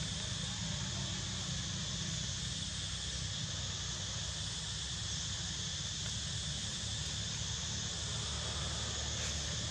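A steady, unbroken chorus of insects shrilling high, over a low steady rumble.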